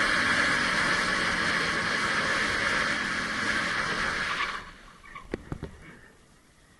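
Loud rushing wind and road noise from a moving motorcycle, which cuts off abruptly about four and a half seconds in. A few short knocks follow close together as the bike goes down in a crash.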